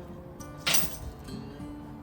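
Background music with held notes, and one short, sharp hit about two-thirds of a second in.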